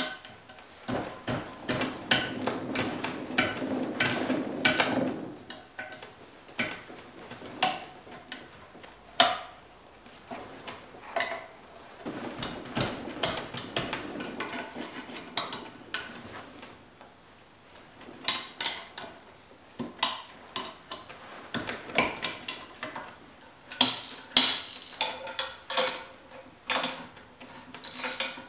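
Hand wrenches and a ratchet working the nuts of a cast-iron manifold on a Chevy 216 cylinder head, making irregular metallic clinks and clicks, with two stretches of rapid ratchet-like ticking as the nuts are turned off.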